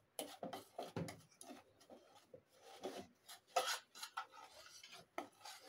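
Metal spoon stirring and scraping dry semolina and flour around a plastic bowl: a run of short, irregular scrapes.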